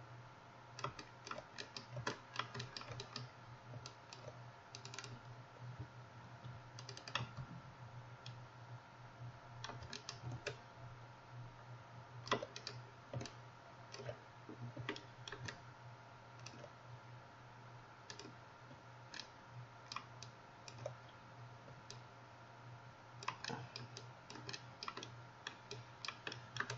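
Computer keyboard keys and mouse buttons clicking in irregular bursts of quick taps, with pauses between, over a steady low hum.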